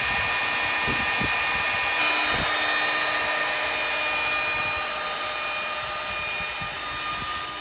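CS Unitec MAB 485 magnetic drill running under heavy load as its bit cuts through a titanium I-beam, fed hard to about 90% of the magnet base's holding power. A steady high motor whine over cutting noise, with a few low knocks in the first couple of seconds and the level easing down slightly past halfway.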